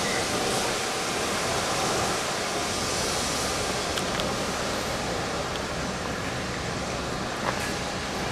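Golf cart driving, heard as a steady rushing noise, with a couple of faint knocks.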